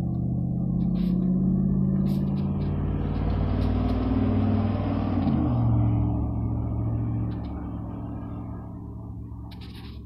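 A motor vehicle passing on a snowy street: a steady low engine note with a swell of tyre noise that builds, peaks about halfway through with the pitch dropping slightly, then fades away.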